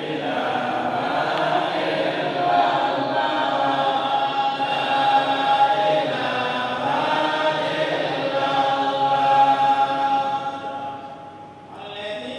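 A man's voice reciting the Qur'an in a slow, melodic chant, with long held notes over a public address system, pausing for breath near the end.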